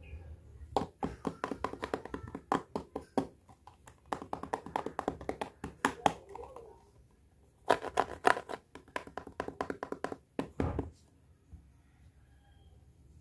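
Fingers tapping and handling hard plastic toys, including a plastic toy handbag: quick runs of sharp clicks and taps in three bursts with short pauses between, stopping about eleven seconds in.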